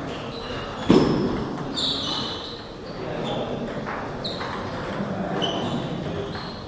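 Table tennis hall sounds: celluloid balls clicking on paddles and tables, with one sharp knock about a second in, short high squeaks scattered throughout, and a hum of voices in a large room.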